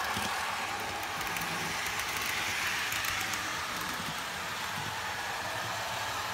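Märklin HO model of the DB class VT 10.5 'Senator' diesel railcar train running on the layout: a steady diesel engine sound from its built-in digital sound decoder, mixed with the model's running noise on the track.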